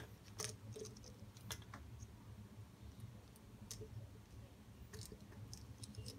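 Light, scattered clicks and taps of plastic model-kit parts being handled and fitted together by hand, about half a dozen at uneven intervals, over a faint low hum.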